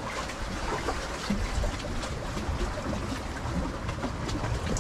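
Steady wash of seawater among concrete breakwater tetrapods, with a low wind rumble on the microphone and a few faint small clicks.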